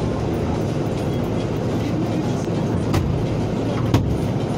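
Steady road and engine noise of a car on the move, with two sharp clicks about three and four seconds in.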